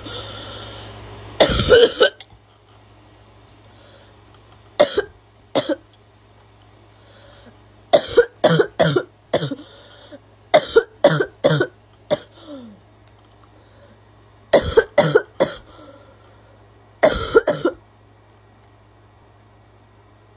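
A girl's barking cough: sharp coughs, single or in quick runs of three to five, with quiet gaps of a second or more between the fits.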